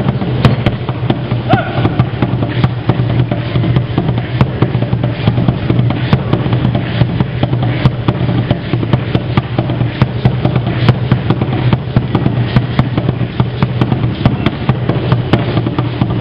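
Dense, rhythmic clattering of chachayote seed-shell rattles strung around an Aztec dancer's ankles, shaken with each step of the dance.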